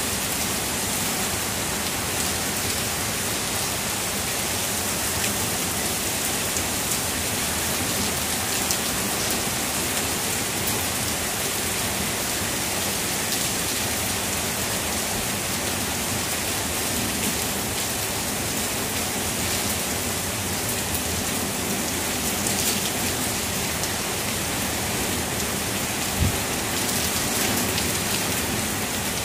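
Heavy rain falling steadily onto trees and hard surfaces, an even, unbroken hiss of drops, with a single short thump near the end.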